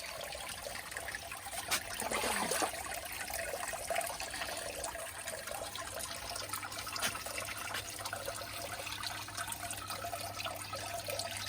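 Water trickling steadily through a hydroponic pipe system, with a faint steady low hum and a few small clicks.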